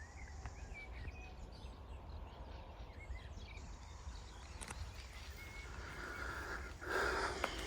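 Faint, brief bird chirps over a steady low outdoor rumble, with a short rustling noise near the end.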